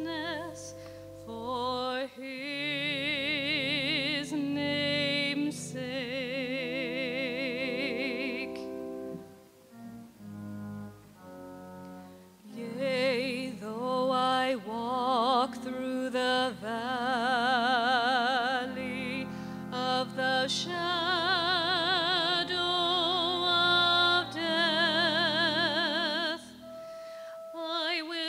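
A woman singing a solo in a classical style with strong vibrato, in long held phrases over an accompaniment of low sustained notes. The singing breaks off for a couple of seconds in the middle, then carries on.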